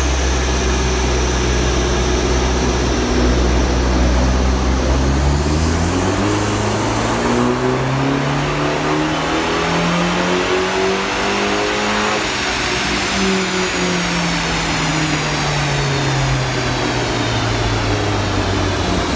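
Alfa Romeo MiTo Quadrifoglio Verde's 1.4 turbo four-cylinder engine on a rolling-road dyno in a full-power run on its standard map, with an intake filter kit and the rear silencer removed. It holds low revs, then revs climb steadily from about six seconds in to a peak near twelve seconds, then fall away as it runs down. A high whine rises and falls along with it.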